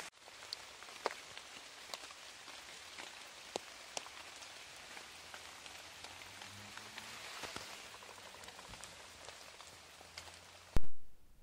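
Rain falling: a steady hiss with scattered drops ticking on nearby surfaces. Near the end a single loud, sharp knock cuts in, and the rain sound drops away.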